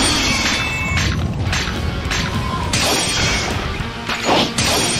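Background music with several sharp clashing hits spread through it, cartoon sound effects of an axe and a large sword striking each other.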